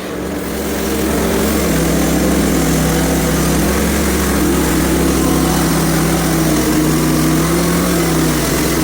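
Small gasoline engine of a Hudson HFE30 band sawmill coming up to speed over the first second, then running steadily at high throttle, its pitch shifting slightly as it works.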